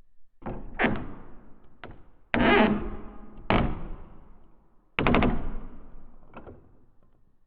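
Wooden door creaking in a series of short, separate creaks, about six, each starting sharply and fading away; the loudest come about two and a half, three and a half and five seconds in, the last of these a quick rattling run of clicks.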